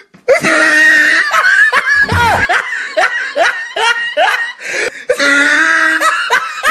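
Loud human laughter: a rapid string of short ha-ha bursts, then a longer drawn-out laugh near the end.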